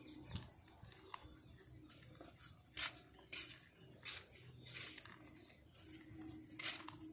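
Domestic cat gnawing and crunching on a chicken drumstick bone: irregular sharp crunching clicks, the loudest about three seconds in.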